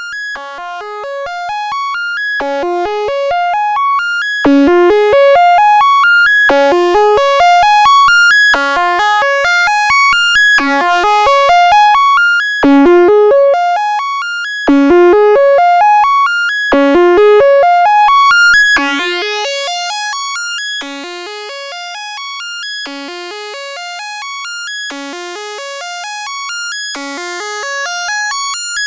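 Moog Spectravox synthesizer oscillator playing fast rising arpeggios through its filter. Each run climbs over about two seconds and then starts again, in a bright tone with many overtones. It is louder from about four seconds in until about nineteen seconds, then softer.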